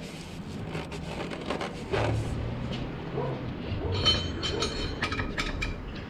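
Hand tool clicking and clinking against metal as the oil filter housing cap is snugged down, with a run of sharp clicks about four seconds in, over a low steady rumble.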